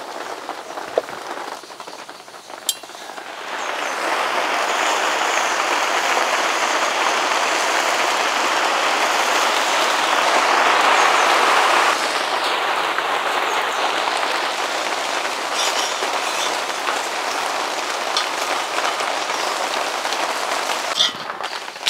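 Dosa batter sizzling on a hot iron tawa: a steady hiss that starts about three seconds in and swells for a couple of seconds midway. Before it, quieter stirring of batter in a steel pot.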